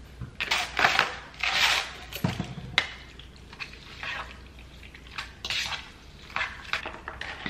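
A seasoning shaker rattled over a bowl in the first two seconds, then a metal fork stirring sauced noodles in a ceramic bowl, with repeated light clinks and scrapes against the bowl.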